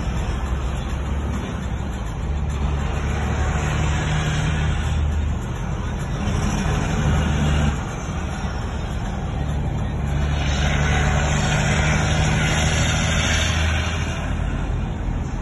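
Western Star truck's engine droning heard from inside the cab on a downhill run, with road and wind noise. The low drone drops off suddenly about eight seconds in and comes back, and a rushing hiss grows louder for a few seconds near the end.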